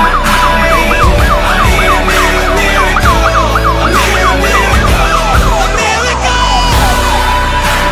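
Police car siren in yelp mode, rapid rising and falling sweeps about three a second, ending in a steady tone about two-thirds of the way through, over background music with a bass beat.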